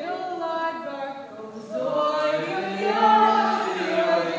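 Several voices singing together in held notes, like a small choir, with little or no instrumental backing.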